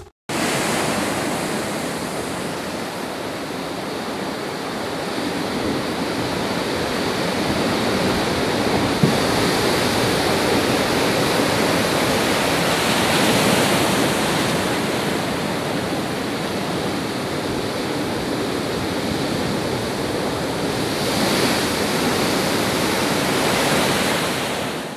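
Heavy storm surf: large waves breaking against a concrete pier in a continuous, steady rush of churning water.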